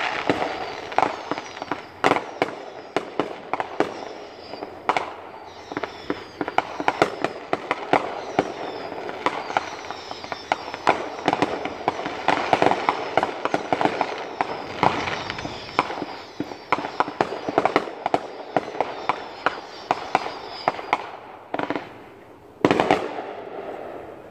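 Fireworks display: a dense run of bangs and crackles going off in quick succession, thinning out near the end with one last loud bang.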